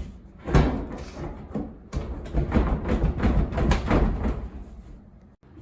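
Irregular knocking, thudding and scraping as a door is forced against a washing machine wedged behind it, dying away near the end.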